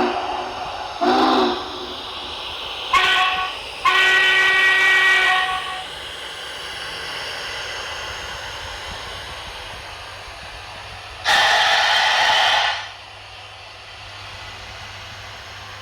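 Model steam locomotive's sound decoder played through its onboard speaker: a chime steam whistle gives a short blast about a second in, two longer blasts at about three and four seconds, and one more long blast past eleven seconds, over a steady hiss of the locomotive's running sound.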